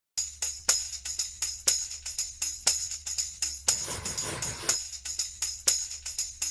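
Music with a tambourine-led beat of about four jingling hits a second over a low steady hum, with a brief noisy swell in the middle.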